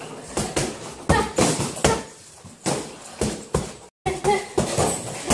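Boxing gloves landing punches on a trainer's pads: a quick series of sharp smacks in clusters of two or three.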